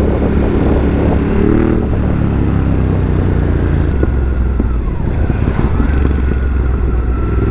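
Ducati Hypermotard 950's L-twin engine running while the motorcycle is ridden through city traffic, the revs rising briefly about a second in.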